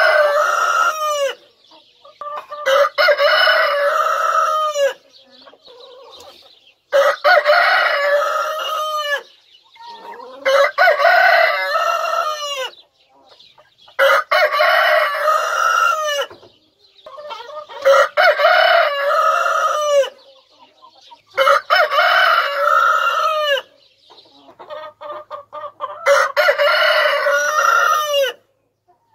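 Rooster crowing over and over: seven full crows of about two seconds each, one every three to four seconds. Hens cluck faintly in the gaps.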